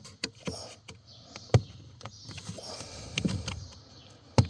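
Hands working the plastic clips of a VW Golf Mk7 cabin (pollen) filter cover: rubbing and small clicks of plastic, with two sharp snaps, about a second and a half in and near the end, as the clips let go.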